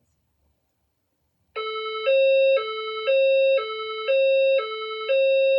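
System Sensor SPSR fire alarm speaker-strobe sounding a hi-lo alert tone, switching between a lower and a higher pitch about every half second. It starts about a second and a half in. This is the alert signal that plays between repeats of a recorded voice-evacuation message.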